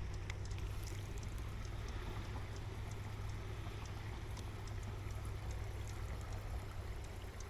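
Creek water running steadily, with faint scattered ticks.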